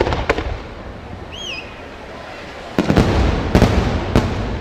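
Aerial firework shells bursting: two sharp bangs at the start, a quieter lull, then a loud run of bangs and crackle from about three seconds in.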